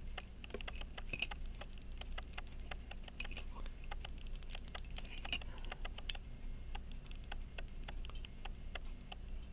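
Pocket watch click snapping over the ratchet wheel teeth as the mainspring is wound, a fast, uneven run of small faint clicks. The click is catching again after its relaxed click spring was bent back, which the owner takes for the fault.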